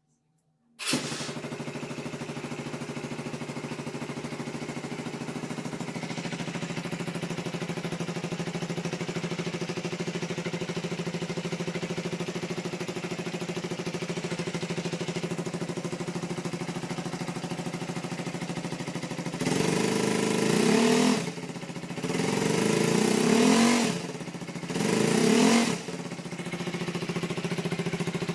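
Z250 motorcycle engine starting on the electric starter about a second in and idling steadily through a homemade removable sport exhaust. Near the end the throttle is blipped three times, each rev rising and falling back to idle.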